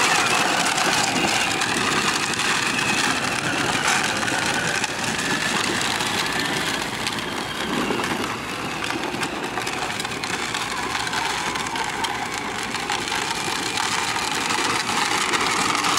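Battery-powered child's ride-on toy quad driving over dirt: a steady electric motor and gearbox whine over the rolling noise of its plastic wheels.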